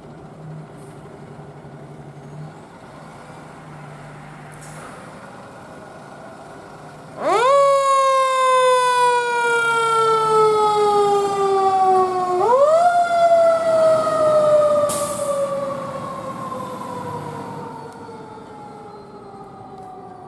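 Fire engine idling with a steady diesel hum, then its siren winds up sharply about seven seconds in and falls slowly in pitch. About five seconds later it winds up again and slowly dies away as the truck pulls off. A short hiss sounds partway through the second fall.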